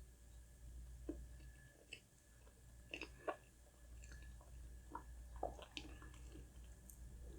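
Close-miked eating sounds: a person chewing soft food, with scattered wet mouth clicks and smacks, the clearest about three seconds in and again around five seconds.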